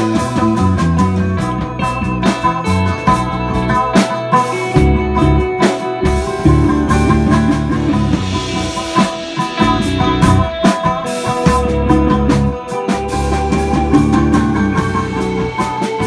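Live instrumental psychedelic rock jam, improvised: electric guitar, electric bass and a cigar box guitar playing over a drum kit, with steady drum and cymbal hits.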